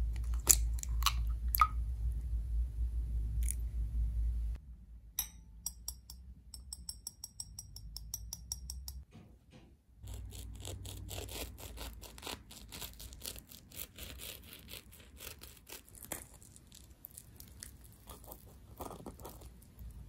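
Utensils clicking against a glass bowl and a whisk ticking quickly and evenly in it, then a knife and spoon cutting into and scooping a baked puff-pastry pie crust, the flaky pastry crackling and crunching for the last ten seconds.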